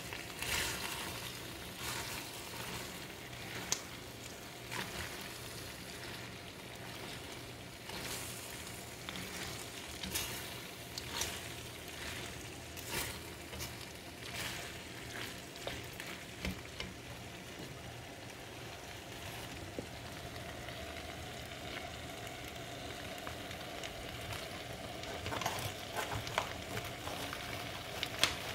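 Plastic slotted spoon stirring and scraping saucy chicken bowtie pasta in a hot stainless steel skillet, over a soft sizzle from the pan. The strokes come every second or two, thin out in a quieter stretch past the middle, and pick up again near the end.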